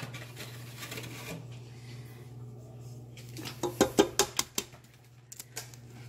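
A quick cluster of sharp clicks and taps on a stainless-steel stand-mixer bowl and whisk about three and a half seconds in, with a few fainter ticks near the end, over a steady low hum.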